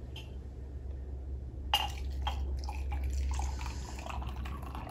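Double espresso being poured from one cup into a glass cup: a light clink of glassware about two seconds in, then the coffee trickling and splashing into the cup.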